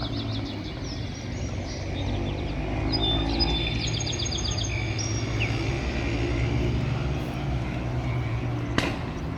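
A steady low engine rumble, like a vehicle running nearby, with birds chirping over it in the first half; one sharp click near the end.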